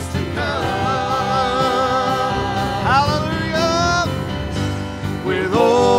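Live church worship band playing, with voices holding long notes with vibrato over the band.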